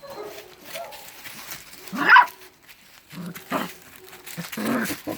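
A dog barking in a few short calls, the loudest about two seconds in, with more barks toward the end.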